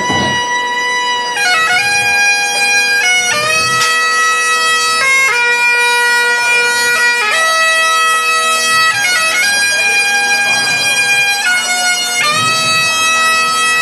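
Homemade bagpipe whose chanter is fed by air pumped from pumps built into the player's stilts. It plays a slow melody of held notes over a steady drone, with quick grace-note flurries between the notes.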